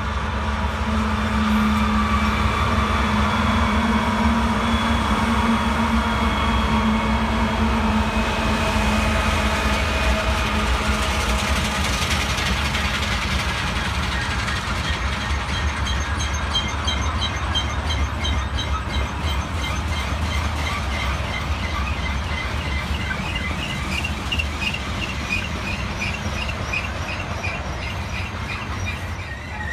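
Union Pacific freight train passing close by: mid-train diesel locomotives drone steadily at first, then a long string of coal hoppers rolls past with a continuous rumble. From about halfway through, a wavering high wheel squeal joins in.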